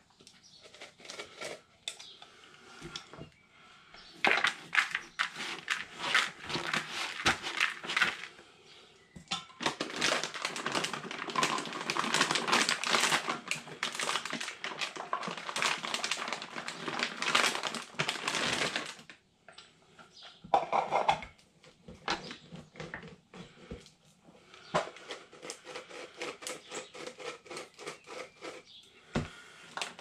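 Hands mixing a plastic bucket of barbel bait (pellets, hempseed and dog-food kibble): a dense clicking rattle, thickest from about 4 to 19 seconds in, then thinning to scattered clicks.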